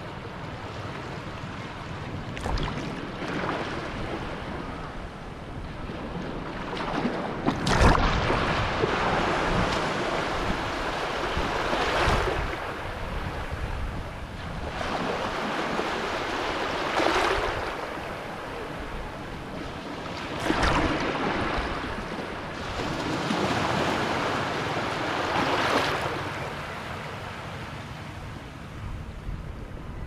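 Small sea waves washing in and breaking at the shoreline, swelling in surges every four to five seconds, the loudest about eight seconds in.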